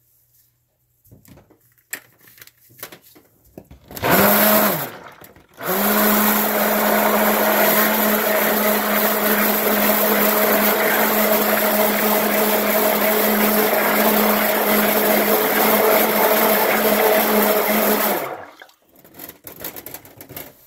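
Stick blender mixing soap batter: a short pulse about four seconds in, then a steady, even motor hum for about twelve seconds before it switches off. Light handling clicks come before and after the blending.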